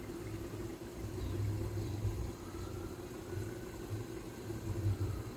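Steady low mechanical hum with a faint rumble underneath, with no sudden events.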